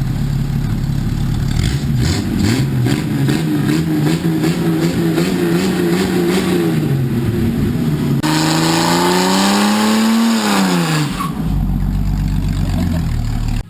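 Jeep Cherokee XJ engine being revved twice: a held rev in the first half, then a higher rev that climbs and drops back to idle near the end.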